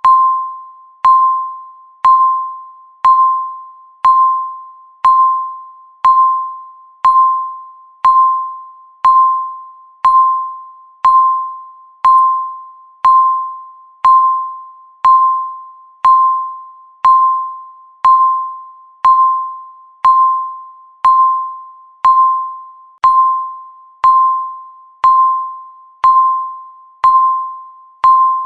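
Countdown timer beep: a single electronic tone sounding once a second, each one starting sharply and fading away before the next, marking each second left on the count.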